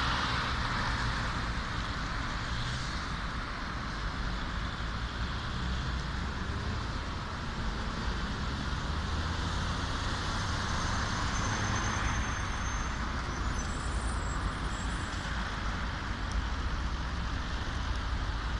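Steady road traffic at a city intersection: cars passing and waiting at the lights, a continuous even noise. A faint high thin whine is heard for a few seconds midway.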